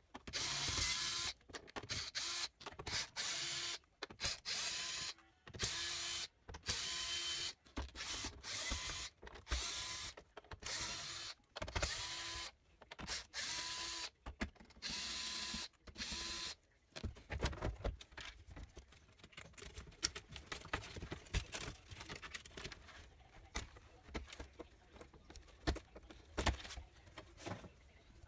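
Electric screwdriver running in short bursts, about a dozen in the first seventeen seconds, backing out the screws of an LCD TV's plastic back cover. After that come scattered clicks and knocks as the loosened plastic cover is handled and lifted off.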